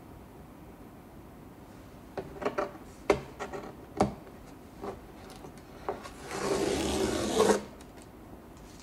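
Watercolour paper handled on a wooden painting board: a few knocks and taps, then a rasping rub lasting about a second and a half near the end as the sheet is slid across the board.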